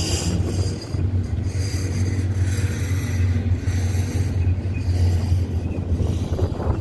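Union Pacific freight train rolling through the station with a steady low rumble, faint high rail tones above it.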